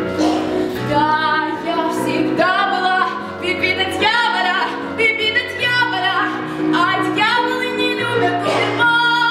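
A female voice singing an operetta song with instrumental accompaniment.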